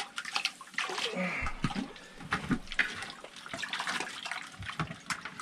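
Water splashing irregularly in an ice-fishing hole as a hooked rainbow trout is pulled up through it by hand.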